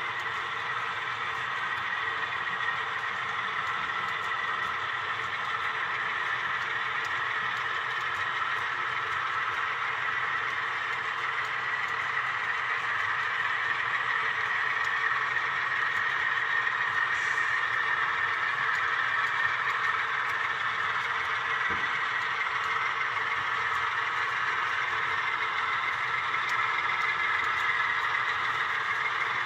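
Steady rolling noise of a long train of HO-scale model coal hopper cars running slowly over the layout track, with faint rapid clicking from the wheels. It grows slightly louder over the stretch.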